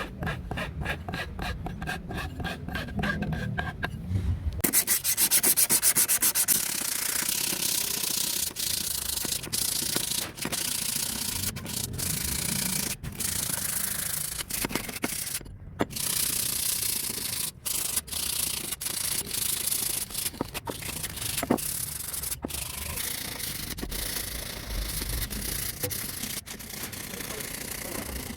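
Sanding: quick rhythmic rubbing strokes for the first few seconds, then steady, continuous sanding broken by a few sudden short gaps.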